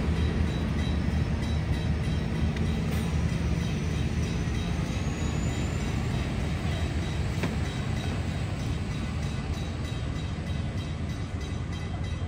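Endeavour-class diesel railcar set pulling out and moving away along the track, a steady low engine rumble that fades slowly.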